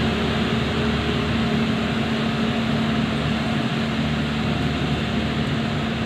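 Diesel engine of a Dongfeng logging truck loaded with acacia logs, running steadily under load as the truck creeps along a dirt forest track.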